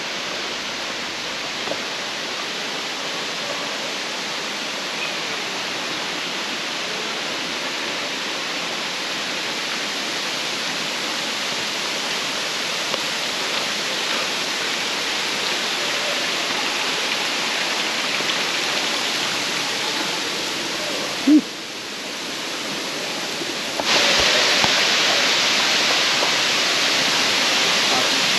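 Steady rushing of falling water from a waterfall, an even hiss with no pitch. About three quarters of the way through there is one short sharp sound, the water briefly drops away, and it returns louder for the last few seconds.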